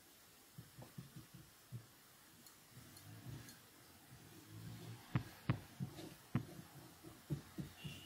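Paintbrush dabbing and stroking chalk paint onto a tissue box: soft low thumps, with a few sharper taps of the brush against the box in the second half.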